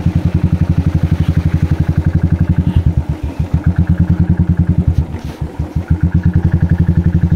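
Motorcycle engine running at low speed, a fast, even thudding beat of exhaust pulses that dips briefly about three seconds in and again about five seconds in.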